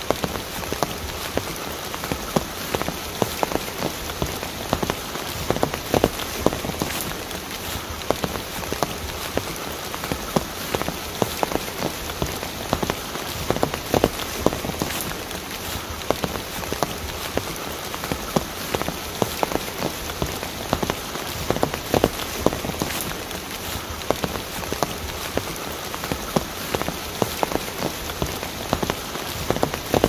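Mountain stream cascading: a steady rush of water with many small, irregular splashes.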